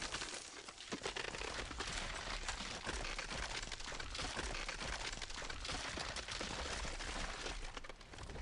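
Dense, steady crackling noise made of many small clicks, dropping away near the end.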